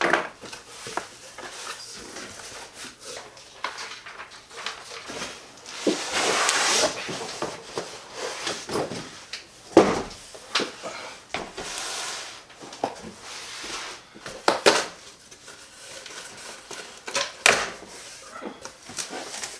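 Cardboard boxes being handled and opened: flaps pulled back and the boxed welder slid out and set down, with scraping and rustling of cardboard and many light knocks.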